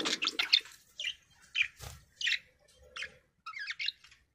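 Budgerigars chirping in short, scattered calls.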